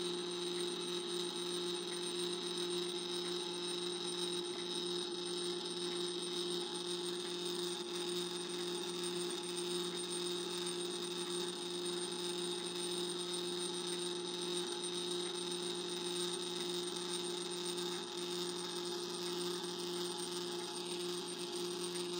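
Freshly cleaned and lubricated clockwork spring motor of an Edison Home Model D phonograph running, its governor and gear train spinning: a steady, even whir with several held tones.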